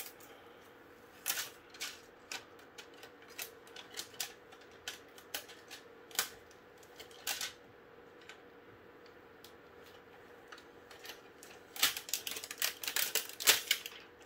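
Irregular clicks and taps from hands handling cables and parts inside an open desktop PC case, turning into a quick run of clicking near the end.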